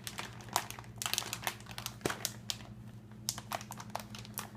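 Plastic anti-static bag crinkling and crackling in irregular bursts as it is handled, over a low, steady hum.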